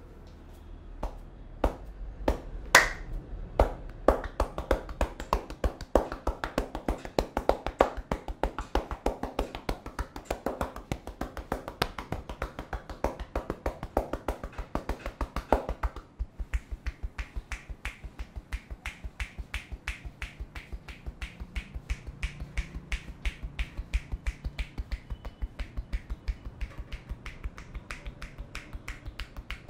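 Rapid, even tapping of a barber's hands on the head during an Indian head massage, about three to four sharp clicks a second. About sixteen seconds in, the tapping changes to a lighter, crisper click.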